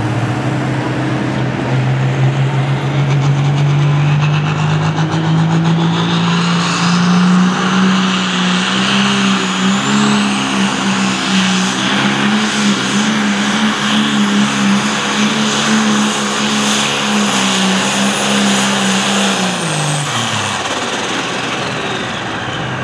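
Pro Stock John Deere 8410 pulling tractor's turbocharged diesel engine under full load pulling the sled. The engine note climbs over the first several seconds, then holds steady with a high whine over it. It drops away about twenty seconds in as the pull ends.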